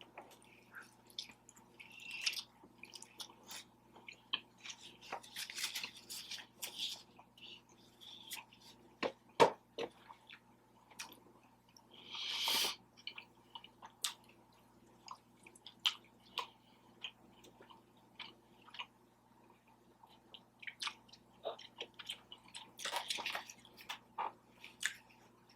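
Chewing and wet mouth sounds from eating birria tacos, many short scattered smacks and clicks, with a few louder ones, over a faint steady hum.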